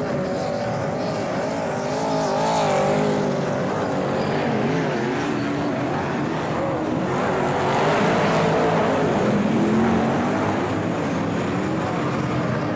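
A pack of super saloon dirt-track race cars with V8 engines racing past, several engines revving up and down at once. The sound swells as the field comes by, about two seconds in and again around eight to ten seconds.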